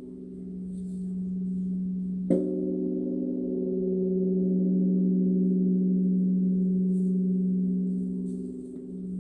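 A large Korean Buddhist temple bell (beomjong) ringing with a long, deep hum. It is struck again with its wooden log about two seconds in, and the ring slowly swells and fades.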